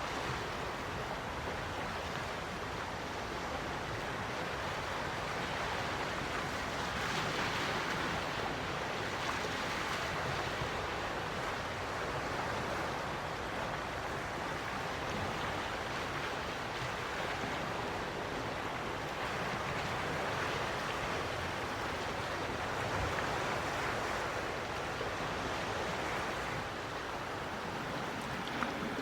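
Quiet sea waves washing onto the shore, a steady hiss of surf that swells every several seconds.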